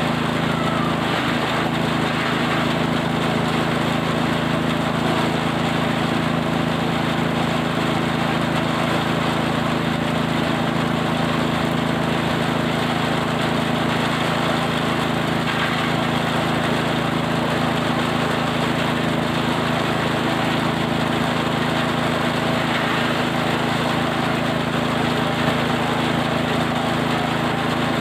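Small engine of a forage chopper running steadily at constant speed, with an even mechanical drone throughout.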